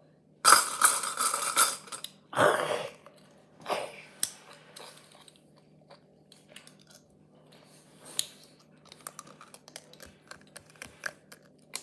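Cooked lobster shell being cracked and pulled apart by hand, in three noisy crackling bursts over the first few seconds, the first the longest and loudest. Then scattered small clicks and taps of shell pieces and cutlery, with some chewing.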